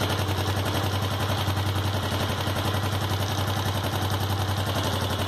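Sundown MAX 125's single-cylinder pushrod four-stroke engine running steadily at idle, a fast even pulsing beat. It makes only its normal pushrod-valvetrain noise: the loud, shrill noise is gone now that the valve clearances have been reset.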